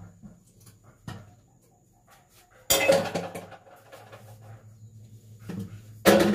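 Two loud clunks about three and a half seconds apart as a length of PVC pipe is handled and knocked against things, each ringing briefly, with a lighter knock about a second in. A low steady hum runs underneath.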